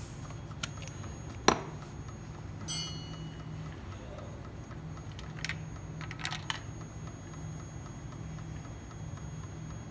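Scattered small clicks and light metallic ticks from gloved hands handling the compression tester and ignition coil connectors at the open spark plug wells, over a steady low hum. The sharpest click comes about a second and a half in, and a short ringing metallic tick follows about a second later.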